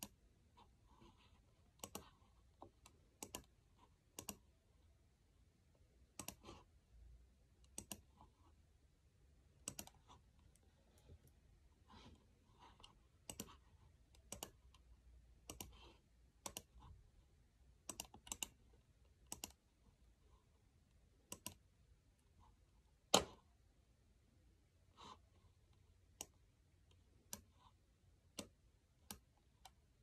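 Faint, irregular single clicks from a computer being worked, roughly one a second, with one louder click about two-thirds of the way through.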